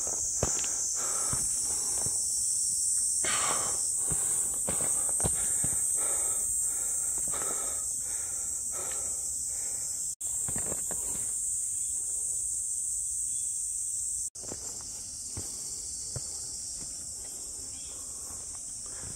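A steady, high-pitched insect chorus with footsteps on a forest trail, one step about every half second. The sound cuts out for an instant twice.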